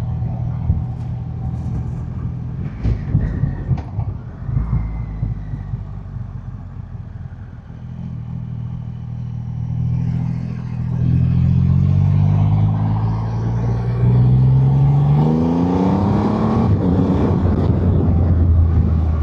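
2025 Triumph Rocket 3 R Storm's 2,458 cc inline-three engine running at a steady cruise, then from about halfway accelerating hard, its pitch climbing in several steps as it shifts up through the gears, with wind rush growing.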